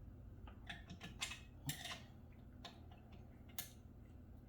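Light, irregular metal clicks and ticks of a hand tool working a bolt while the front stabilizer of an exercise bike is tightened down, about six in all.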